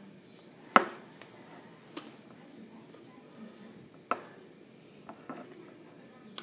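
Hands slapping and knocking together while signing: a sharp, loud smack about a second in, another near the four-second mark, and a few softer taps between them.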